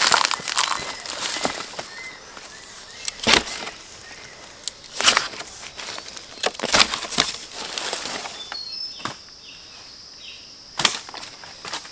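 Sharp, irregular strokes of a hand tool, about five, one to two seconds apart, from harvesting bamboo shoots, with faint bird chirps later on.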